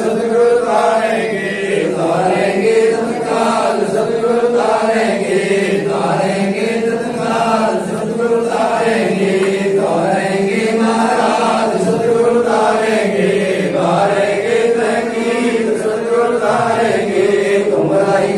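A congregation of voices chanting a Punjabi devotional hymn together in unison, the sung line flowing on without a break.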